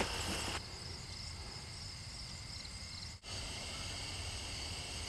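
Crickets and other field insects trilling steadily as several high, even tones, with a faint low rumble beneath. The sound cuts out for an instant about three seconds in.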